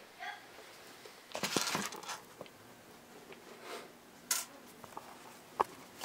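Scattered rustling and a few light clicks and knocks of things being handled, the sharpest a single clack about four seconds in and another click near the end.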